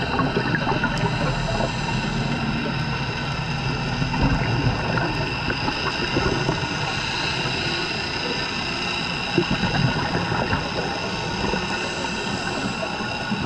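Boat motor running steadily with water noise and a scattered crackle.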